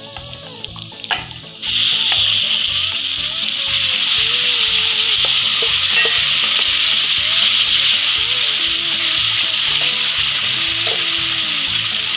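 Marinated chicken going into hot ghee and oil in a kadai: a loud, steady sizzle of frying that starts suddenly about a second and a half in.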